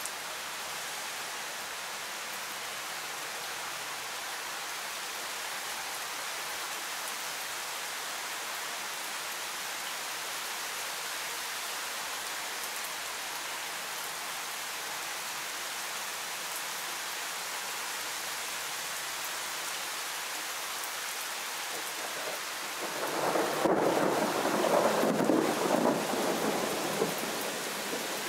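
Steady rain falling in a thunderstorm, an even hiss. About 23 seconds in, a roll of thunder swells, rumbles for some five seconds and dies away.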